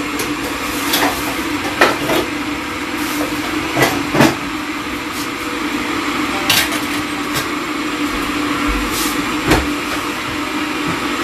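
Steady whirring hum of a kitchen cooker-hood extractor fan running over the gas hob, with about eight scattered knocks and clinks of dishes and utensils.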